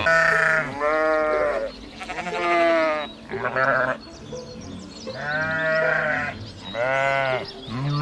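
Farm animals bleating: about six short calls, some with a wavering quaver, in two groups with a pause in the middle.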